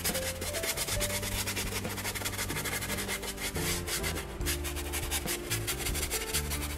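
Paintbrush scrubbing acrylic paint onto canvas in quick back-and-forth strokes: the dry-brush scumbling technique, a steady scratchy rubbing of bristles on the canvas surface.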